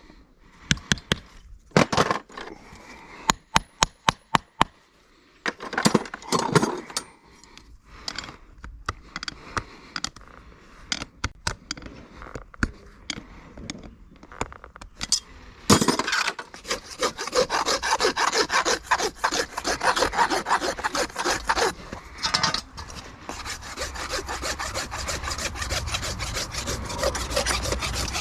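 Farrier's rasp scraping a horse's hoof in quick repeated strokes through the second half, after a first half of separate sharp taps and knocks.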